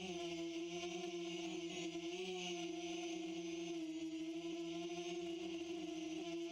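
Quadcopter drone's motors and propellers humming, a steady droning tone with overtones whose pitch wavers slightly as the drone adjusts, over a hiss of prop wash.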